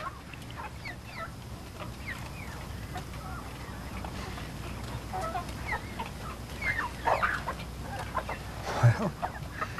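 A flock of chickens clucking: a scatter of short calls that grows busier in the second half.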